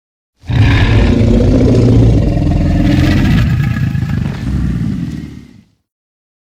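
Tyrannosaurus rex roar sound effect: one long, deep, loud roar of about five seconds that starts abruptly and tapers off near the end.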